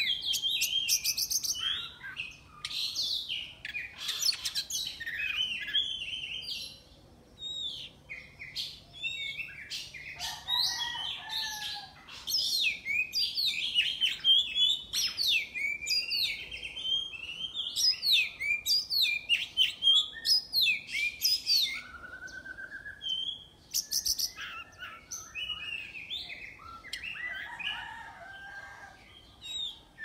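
Oriental magpie-robin (kacer) singing a varied song of quick whistled phrases that slide up and down, mixed with harsh buzzy notes, breaking off briefly a few times.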